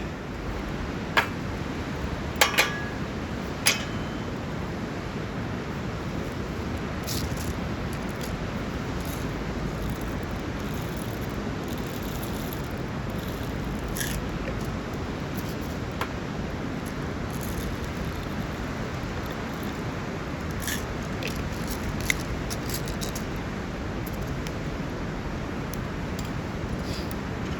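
Steady low rushing noise with a handful of sharp clicks or snaps: four in the first four seconds, including a close pair, and one more about 22 seconds in.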